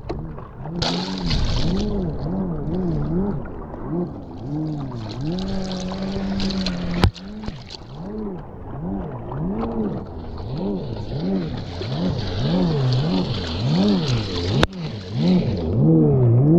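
Jet ski engine revving up and down in quick swoops, about one and a half a second, held at a steady pitch for a couple of seconds midway, with spray and wind hissing over it. Two sharp knocks stand out, one about halfway through and one near the end.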